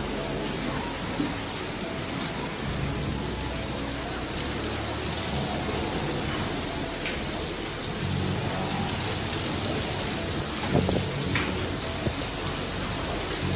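Storm noise: strong wind blowing, a steady hiss with a deep rumble underneath and a few brief knocks near the end.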